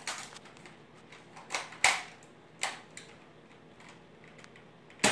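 Sharp clicks and snaps of a Nerf Alpha Hawk blaster being primed and fired: two close together about two seconds in, the second the loudest, another shortly after, and a loud snap right at the end.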